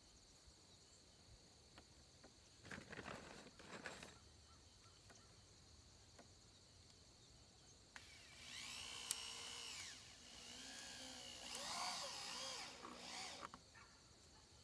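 Power drill driving screws into birch poles: two runs, one about eight seconds in and another about ten and a half seconds in, the motor's pitch rising and falling with the trigger. A shorter burst of noise comes about three seconds in.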